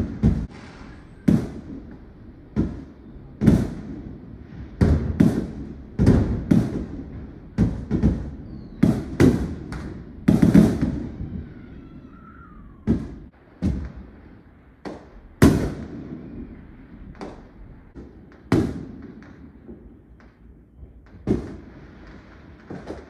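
Aerial fireworks shells bursting: an irregular run of sharp bangs and deeper booms, roughly one a second, each trailing off in a rumbling echo.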